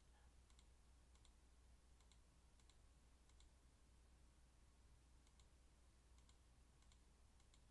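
Faint, irregular computer mouse clicks, often a quick press-and-release pair, over near silence and a low steady electrical hum.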